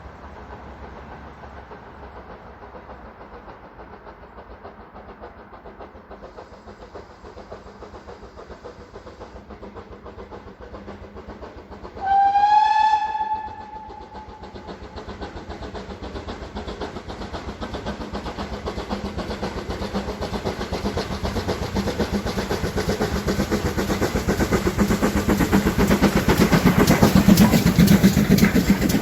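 A steam train approaching. It gives a single whistle blast about twelve seconds in, then its rhythmic running sound grows steadily louder as it nears.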